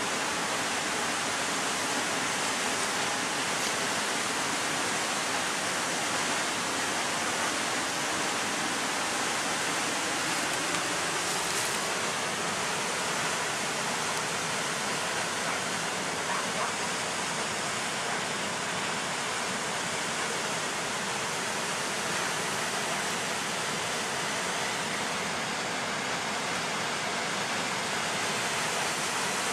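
Waterfall cascading over rock ledges: a steady, even rush of falling water.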